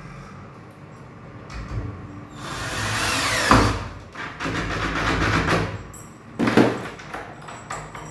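Cordless drill driver run in three short bursts while fitting a door's handle lock. The pitch drops at the end of the first burst, and the last burst is the shortest and sharpest.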